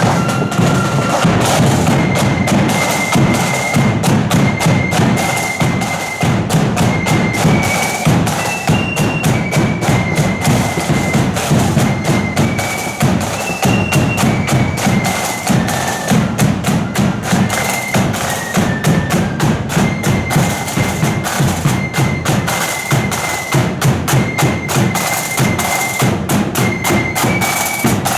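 Marching flute band playing a tune: a high melody on flutes over fast snare-drum rolls and a steady bass drum.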